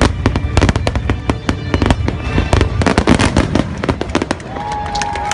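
Fireworks finale barrage: many shells bursting in rapid succession, dense bangs and crackling over a deep rumble, easing off about four seconds in. The show's music plays underneath.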